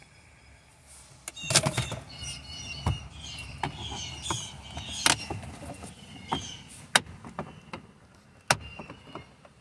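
Honda Element's plastic dashboard trim panel being pried off its retaining clips with a flat-blade screwdriver: about five sharp clicks and snaps, with squeaky plastic creaks in between, as the clips let go.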